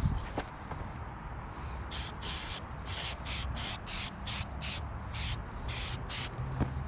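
Aerosol spray-paint can being sprayed in about a dozen short hissing bursts, starting about two seconds in.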